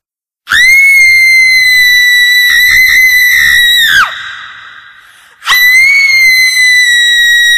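Shrill, very loud screaming held at a steady, very high pitch: one long scream of about three and a half seconds that wavers briefly and drops off at the end, then a fading echo, then a second long scream starting about five and a half seconds in.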